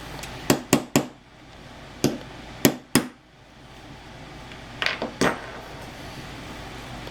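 Light hammer taps on metal, seating a roll pin into a Llama Comanche III revolver. There are about nine sharp taps in three groups of three, the last group close together about five seconds in.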